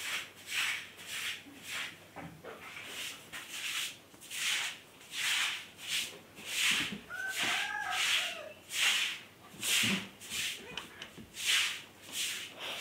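Lhasa Apso dog rubbing and scratching at a plush toy on a cloth bedsheet: a rhythmic rasping of fabric about twice a second, with a short faint squeak about halfway.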